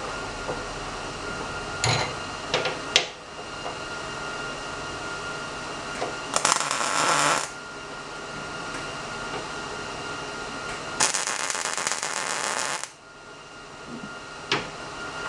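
Wire-feed (MIG) welder laying two short tack welds on steel: a crackling buzz of about a second, then another of about two seconds, tacking threaded-rod legs to a steel plate. A few sharp clicks before and after, over a steady hum.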